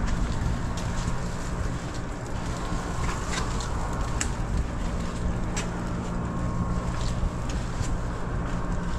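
Steady low mechanical hum with a rushing noise, broken by a few light clicks.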